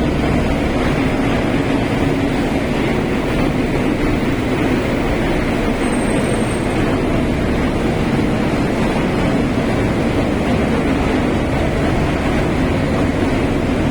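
Woodchip-handling machinery with a belt-driven driving pulley running under load: a loud, steady rumble and drone. This is the abnormal running noise that prompted a check of the driving pulley bearing.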